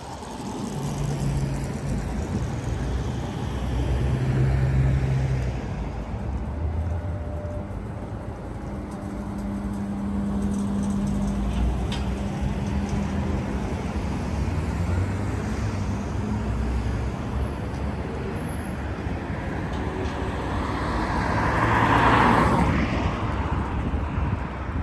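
Street traffic: motor vehicles running and passing close by with a low engine hum, one passing loudest near the end.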